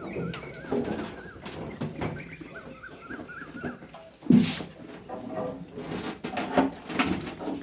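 Small birds chirping in quick runs of short rising-and-falling notes, twice. About four seconds in there is a single loud thump.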